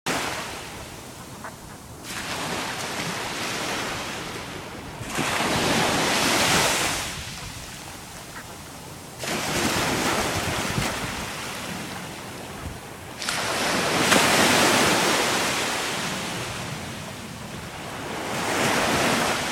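Ocean surf: waves breaking and washing in, rising and falling about five times, one surge every three to four seconds.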